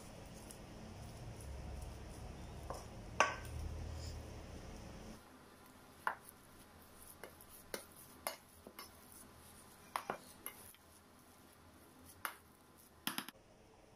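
Utensils working cooked rice in a stainless steel bowl: a wooden spoon scraping with one loud clank about three seconds in, then a metal potato masher mashing, with sharp clinks of metal against the bowl every second or so.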